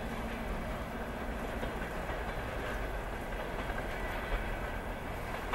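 Passenger train's wheels running on the rails as it draws away, a steady noise with no breaks.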